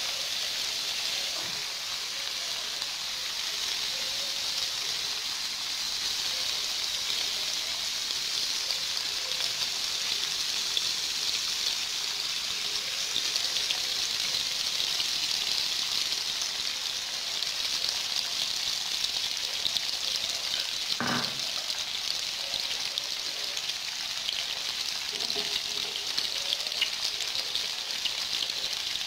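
Tofu cubes frying in hot oil in a pan, a steady sizzle with fine crackling. A single knock about two-thirds of the way through.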